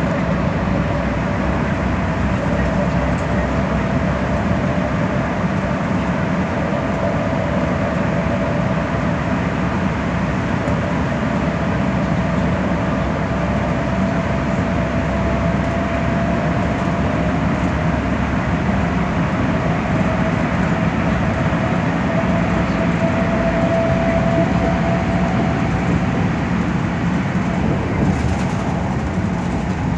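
Inside a moving metropolitan express bus: steady road and drivetrain noise, with a thin whine that slowly rises in pitch as the bus gathers speed.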